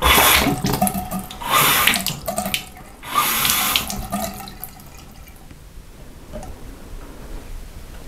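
Water running from a two-handle bathroom faucet into the sink basin, coming in three loud surges over the first four seconds and then fading away to a faint trickle. The faucet is being tested after its leaking cartridges were replaced.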